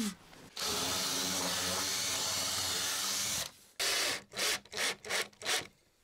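Cordless drill-driver running steadily for about three seconds, driving a screw into plywood, then a string of short rubbing strokes, about two a second.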